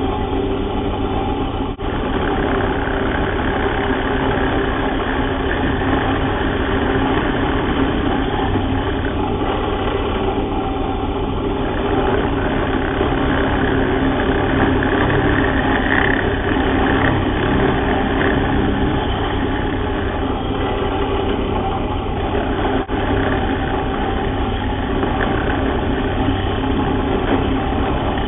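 Bench drill press motor running steadily while its twist bit, held down at the bottom of a mortise, cuts away the waste wood as the timber is moved side to side.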